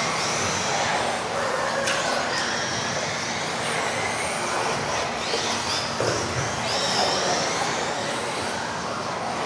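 Several electric RC off-road buggies racing together. Their motors make high whines that rise and fall in pitch as the cars speed up and slow down, over a steady hiss.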